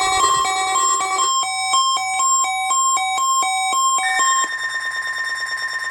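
Electronic alert tones of an Emergency Alert System weekly test signal. First comes a quick run of beeps at several pitches. About a second in, it switches to two tones alternating rapidly, and about four seconds in it settles into a single held tone.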